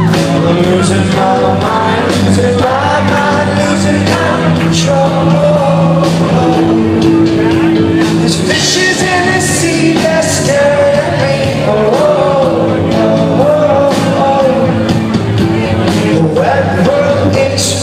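A band playing a rock song with a singer's voice carrying the melody over steady bass and drum hits.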